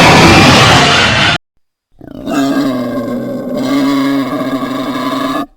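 Dinosaur roar sound effects. A loud rasping roar lasts just over a second and cuts off. After a short silence, a long pitched bellow holds for about three and a half seconds.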